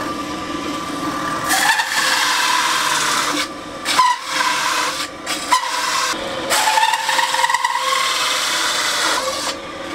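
Drill press driving a hole saw into stacked plywood. The motor runs at first, then the cutting noise sets in with a high whine that wavers in pitch, and it drops out briefly twice, around three and a half and five and a half seconds in.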